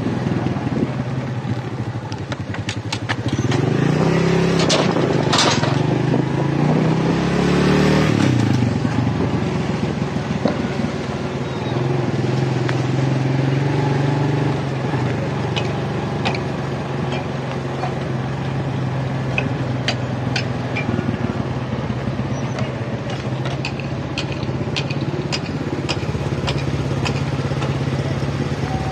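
Heavy trucks and other vehicle engines running steadily. About three seconds in, one engine revs up, its pitch rising and growing louder, then falls away at about eight seconds. Scattered light clicks and clatter come in the second half.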